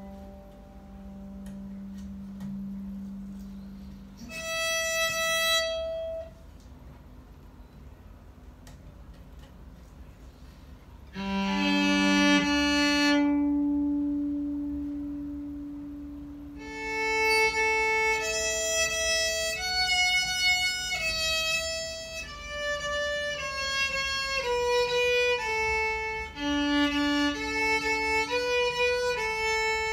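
Old Japanese electric violin being bowed: a few long held low notes separated by pauses, then a flowing melody of shorter notes that steps downward near the end.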